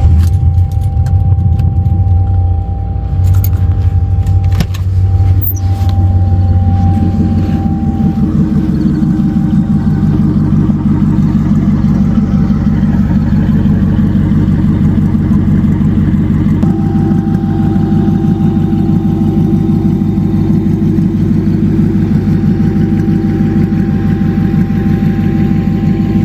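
Turbocharged Lincoln Town Car's V8 running steadily at idle, with a few clicks and knocks in the first several seconds; the engine sound becomes fuller about seven seconds in.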